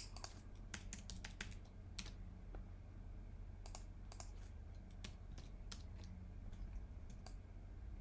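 Computer keyboard keystrokes: a quick run of taps in the first second and a half, then a few scattered taps, as numbers are typed into a value field.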